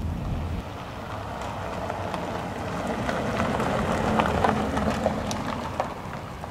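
Rain hissing steadily, with scattered crackling drops; it swells to its loudest about four seconds in and then eases off. A low car-interior rumble stops about half a second in.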